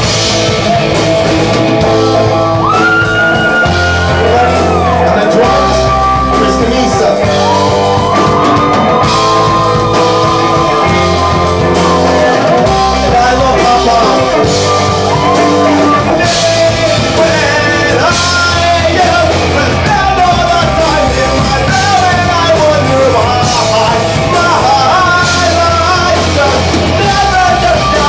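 Rock music with a sung vocal line over bass, guitar and drums, played loud and steady.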